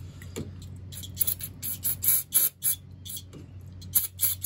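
Aerosol brake cleaner sprayed onto a lawn tractor's brake disc in a series of short hissing bursts.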